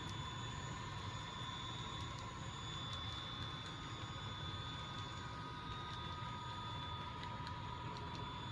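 HO scale model trains running on the layout: a steady low hum with a thin electric-motor whine over it and a few faint light clicks.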